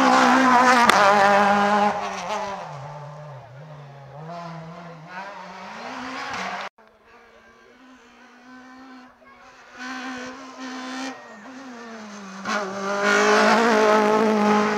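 Two rally cars pass at full race pace, one after the other, their engines revving hard with the pitch rising and dropping through gear changes. The first is loudest at the start and fades away; after a sudden break the next is heard approaching and passes loudly near the end.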